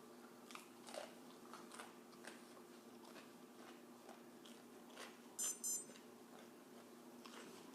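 Soft chewing and small mouth clicks over a steady low hum, with two short, high-pitched electronic beeps in quick succession about five and a half seconds in.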